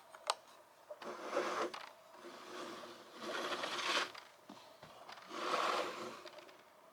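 Plastic LEGO model sections being handled: one sharp click just after the start, then three separate passes of rubbing and scraping.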